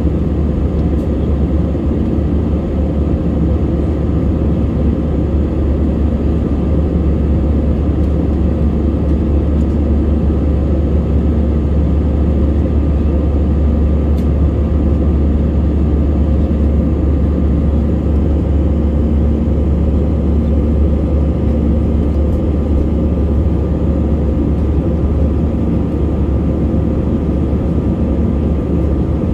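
Steady cabin noise of a jet airliner in flight, heard from inside the cabin: a constant deep drone of the engines and rushing air, with a faint steady tone above it.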